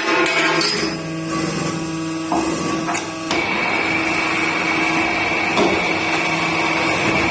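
Special-purpose cross-drilling machine running and drilling a fan shaft: a steady machine hum with a high whine that drops out near the start and comes back about three seconds in, plus a few clicks.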